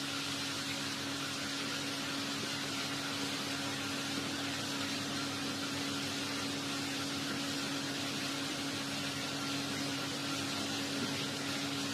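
A steady hum with an even hiss, unchanging throughout.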